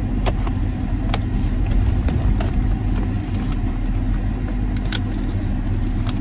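Steady low rumble of a car heard from inside its cabin, with a handful of sharp clicks as scissors cut the packing tape on a cardboard mailing box.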